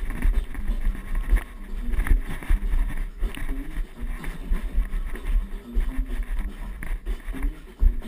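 Rumbling and bumping handling noise from a camera jostled about on the move, with scattered knocks.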